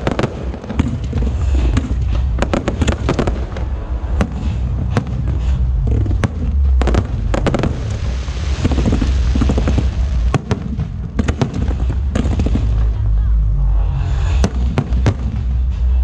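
Aerial fireworks display: shells bursting in a rapid string of sharp bangs over a continuous deep rumble, with a spell of dense crackling about halfway through.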